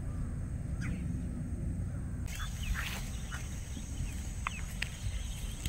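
Wetland birds giving scattered short, sharp calls over a steady low rumble, with a high hiss coming in about two seconds in.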